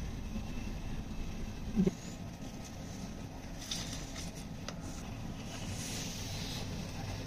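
Faint scrapes, clicks and rustles of hands scooping grated radish filling from a metal pan and pinching paratha dough closed around it on a stone board, over a steady low background rumble. A short low pitched sound stands out about two seconds in.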